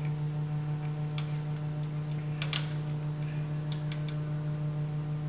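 A few light metallic clicks and taps from a wire terminal being fitted onto a motorcycle starter's top post, over a steady low hum.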